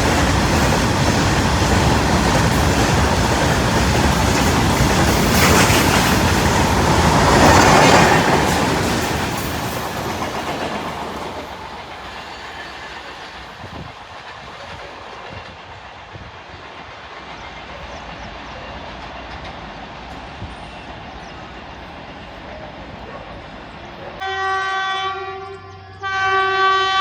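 An Indian Railways train passing at speed, its wheels rattling and clattering loudly on the rails, then fading away over a couple of seconds. After a quieter stretch, a train horn sounds twice near the end: a blast of about a second and a half, then a second one that runs on.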